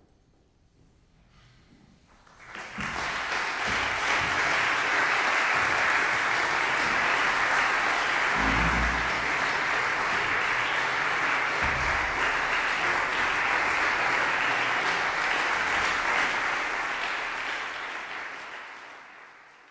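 Concert audience applauding, coming in about three seconds in after near silence, holding steady and dying away near the end.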